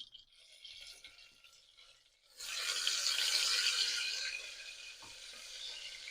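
Butter sizzling in a hot pan: a dense hiss that starts suddenly about two and a half seconds in, then slowly fades as the butter melts.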